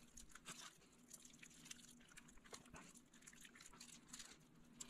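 Near silence: faint scattered clicks and soft rustles of hands working stuffing into whole flounder on a foil-lined pan, over a faint steady hum.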